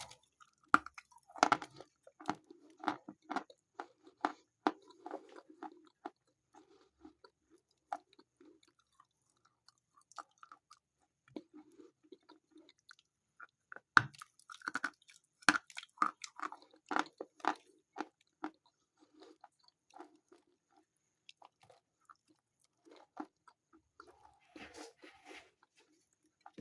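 A person biting and chewing a piece of Khrapovsky natural chalk close to the microphone: short crisp crunches in two bouts, the second about fourteen seconds in, with softer chewing between. The chalk is sandy and stops crunching soon after each bite.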